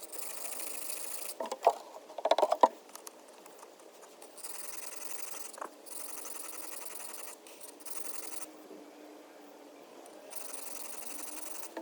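Steel blade being stroked on a sharpening stone: a scraping hiss in runs of a few seconds, with short pauses between, and a few sharp knocks a couple of seconds in.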